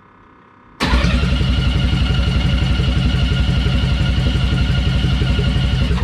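Race car engine firing up after a month sitting parked, catching at once about a second in and running loud with a fast, even pulse, then shut off abruptly at the end. A faint steady whine comes just before it fires.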